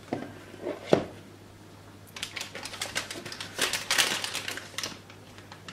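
A metal spoon scraping and tapping as whipped cream is scooped from a bowl and pushed into a plastic piping bag, with the bag rustling. There is one sharp click about a second in, then a quick run of light clicks and scrapes from about two seconds in.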